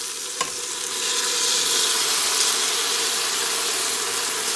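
Onions and freshly washed rice sizzling in hot coconut oil in a stainless steel pressure cooker, the sizzle swelling about a second in as the wet rice goes into the oil. A single light tap about half a second in.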